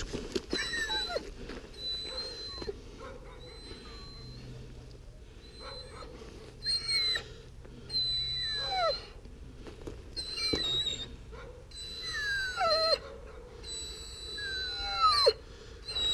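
Young German Shepherd puppy whining again and again on its leash, each high whine falling steeply in pitch.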